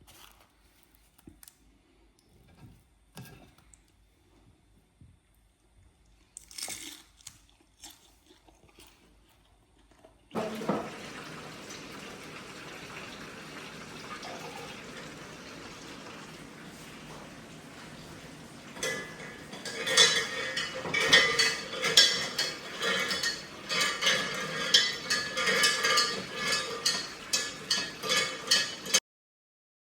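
Water starts running steadily about ten seconds in, and from about halfway there is rapid clattering and clinking of dishes and cutlery, as when washing up at a sink. Both stop abruptly near the end.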